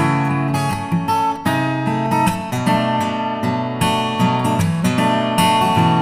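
Background music: strummed acoustic guitar with sustained chords and regular strokes.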